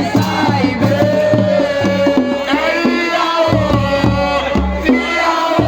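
Music: a song with a singing voice over a steady beat of drums and bass.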